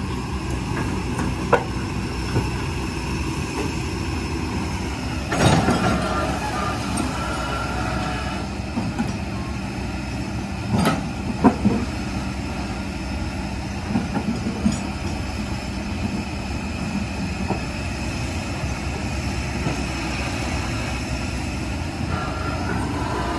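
Kobelco hydraulic excavator's diesel engine running steadily, broken by several sharp knocks, the loudest about five and eleven seconds in.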